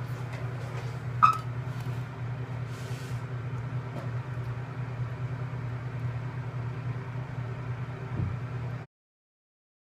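A steady low hum, broken about a second in by one sharp metallic pop with a brief ring as a glass pasta-sauce jar's lid is twisted open. The sound cuts off abruptly near the end.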